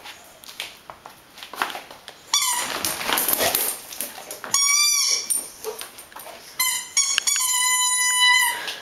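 Squeaky rubber toy ball squeaked repeatedly as a dog bites it: scuffling about two seconds in, a wavering squeak near the middle, then a few short squeaks and one long, steady squeak near the end.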